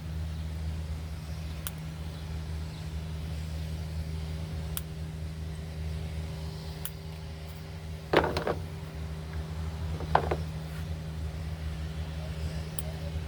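A steady low hum throughout, with two short bursts of clicking and scraping about eight and ten seconds in from hand work on a chainsaw's small rubber fuel lines.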